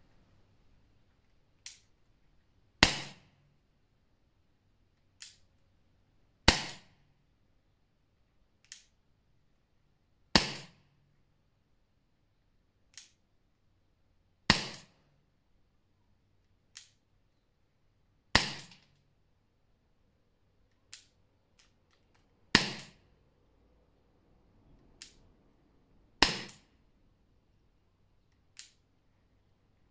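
Walther Nighthawk CO2 air pistol firing pellets through a chronograph. There are seven sharp shots, one about every four seconds, each dying away briefly, and a fainter click comes roughly a second before each shot.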